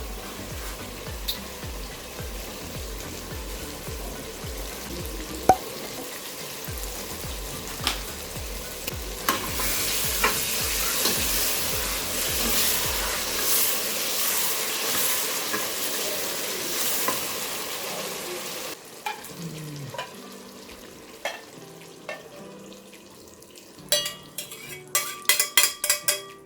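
Food sizzling as it fries in a pot while it is stirred. The sizzle grows louder about a third of the way in and drops away about two-thirds through, followed near the end by a quick run of clinks of a spoon against the pot.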